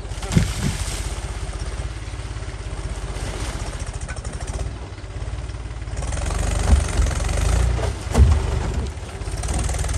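Diesel tractor engine idling with a steady low chug, with a few sharp knocks, about half a second in and twice near the end, as a large plastic drum is tipped and rolled over the ground.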